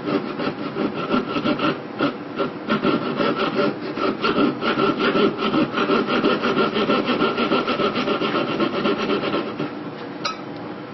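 Jeweler's saw blade, held fixed in a wooden block, rasping against a bracelet's tongue clasp in rapid back-and-forth strokes. It is cutting the worn, rounded crease of the clasp back to a sharp square edge so the clasp grips again. The strokes stop near the end, followed by a single light click.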